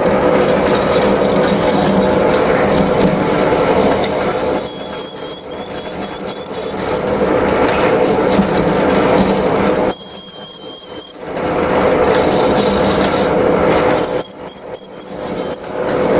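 Lathe running steadily as a grooving tool cuts into a pulley blank to deepen the groove, with a thin high-pitched tool squeal that comes and goes three times.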